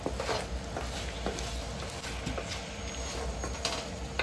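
Wooden spatula stirring chicken feet and livers in a wok of adobo sauce: irregular soft clicks and scrapes over a steady hiss from the hot pan.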